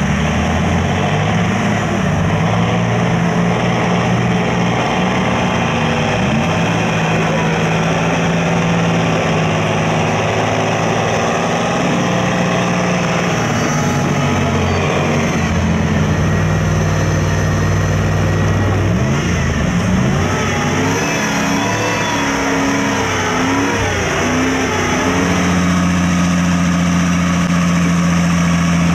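Engines of off-road trucks labouring in deep mud, held at high revs for long stretches. The revs swing up and down several times about two-thirds of the way in.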